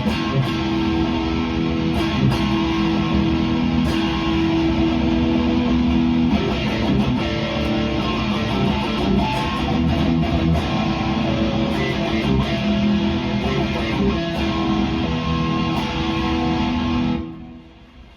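Heavy metal instrumental with distorted electric guitar over bass and drums, which cuts off about 17 seconds in, leaving a faint fading tail.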